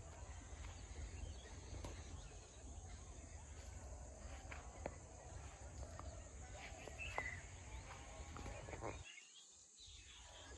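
Faint rural outdoor ambience: a steady low rumble of wind on the microphone, with a few faint bird chirps about seven seconds in and scattered light clicks.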